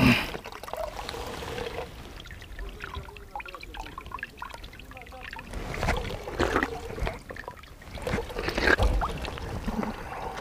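Small spring trickling weakly, barely running in the drought, with a sharp knock right at the start and scattered bumps and rustles of handling.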